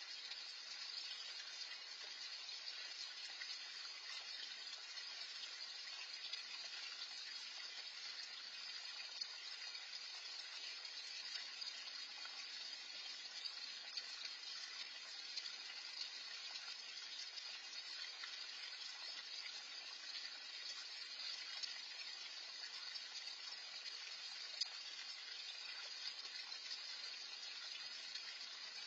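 Small garden pond fountain splashing steadily into the pond: a continuous, even wash of falling water, with a few faint clicks.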